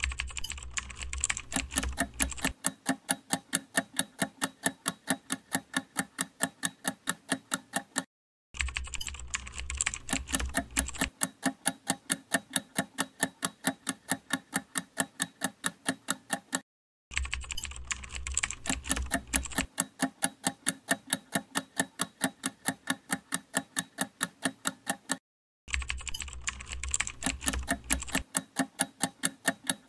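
Quiz countdown-timer sound effect: sharp clock-like ticking at about four ticks a second. It stops for a brief silence and starts again three times, and each restart opens with a low rumble under the ticks for the first two seconds or so.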